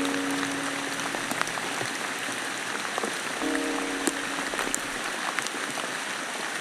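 Steady rain with scattered sharp drips. A low held note sounds for about a second at the start and again about three and a half seconds in.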